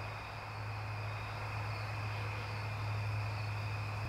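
Steady chorus of night insects such as crickets, a continuous high trill, over a steady low hum.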